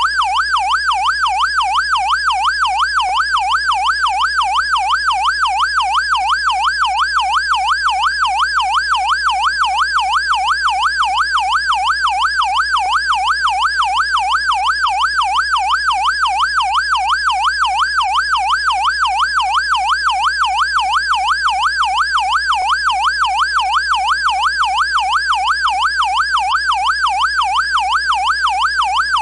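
Whelen Engineering electronic police siren sounding its warble tone: a loud, fast, even up-and-down sweep in pitch.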